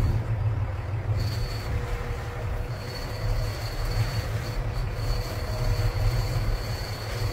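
Steady low rumble of a fishing boat's engine and the water around the hull, with a thin high-pitched whine running over it that breaks off briefly once or twice.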